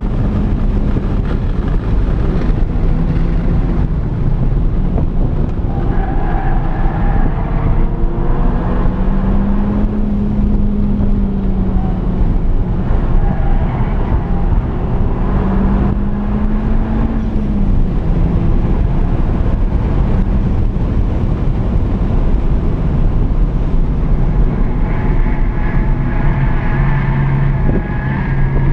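Honda Civic Type R (FK8)'s turbocharged 2.0-litre four-cylinder pulling hard on track, heard from inside the cabin. The engine note rises and falls with throttle and gear changes.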